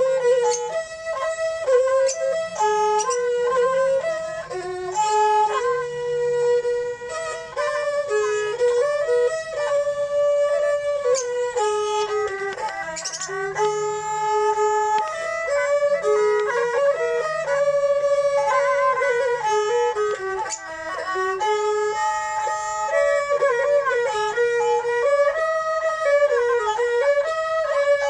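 Thai two-string bowed fiddles (so) playing a mahori melody together in the old kantrum style: a continuous bowed tune that steps and slides between notes, with a fainter lower part underneath.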